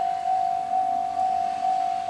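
Japanese railway level-crossing alarm ringing its repeated 'kan-kan' tone, a single clear pitch struck about twice a second, which warns that a train is approaching.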